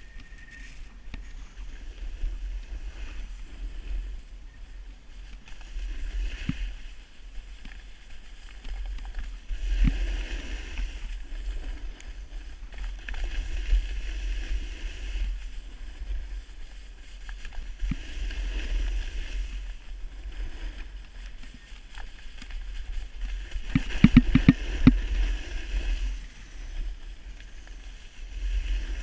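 Wind buffeting the action camera's microphone while snowboarding downhill, with the board's edge scraping over the snow in swells that rise and fall with each turn. About three-quarters of the way through comes a quick run of knocks, the loudest moment, like the board chattering over hard snow.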